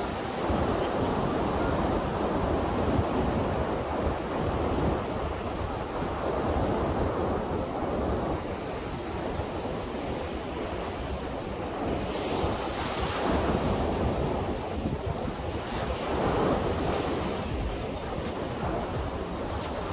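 Ocean surf breaking on a sandy beach: a continuous wash of waves with wind buffeting the microphone. The hiss of the surf swells up twice in the second half.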